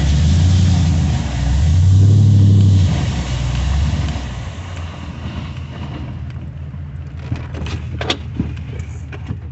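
2005 2500 HD plow truck's engine running as the truck backs up, heard from inside the cab. The loud low hum eases off about three seconds in and settles to a quieter, steady run, with a few sharp clicks near the end.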